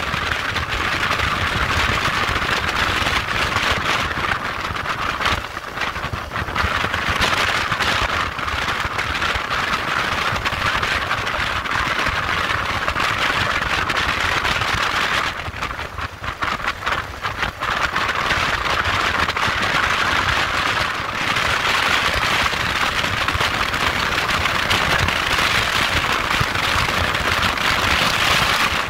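Motorcycle riding at highway speed: steady wind rush over the engine and tyre drone. The noise eases for a couple of seconds about halfway through, then builds back up.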